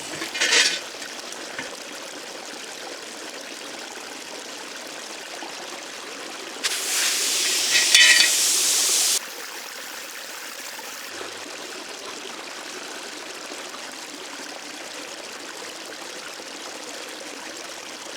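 Steady trickling and rushing of a flowing stream. A much louder hiss cuts in for about two and a half seconds near the middle, with a few clicks, then stops suddenly.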